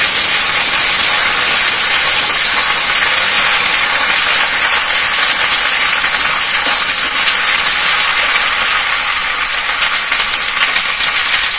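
Ginger and garlic paste sizzling in hot oil in a metal kadai: a loud, steady frying hiss that eases a little after about eight seconds, when a few light clicks come in.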